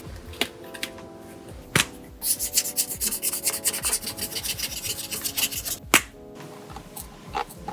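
Paper being rubbed and rustled in quick scratchy strokes for a few seconds, with a sharp paper tap just before and just after, over soft background music.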